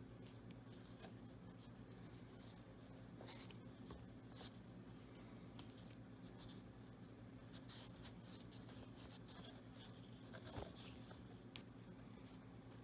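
Faint rustling and small scratchy ticks of fingers working thread around a hockey skate lace while tying a knot, a few louder ticks scattered through, over a steady low hum.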